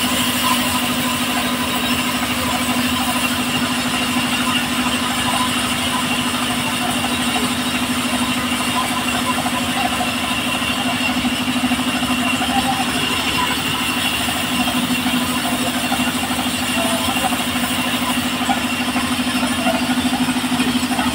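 Circular sawmill machine and its drive running steadily, a continuous even hum with no starts, stops or changes in pitch.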